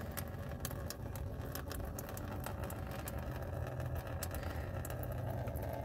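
Wind rumbling steadily across the microphone, over the trickle of dark, flush-thinned engine oil pouring from the oil pan's drain plug into a drain pan, with scattered small ticks.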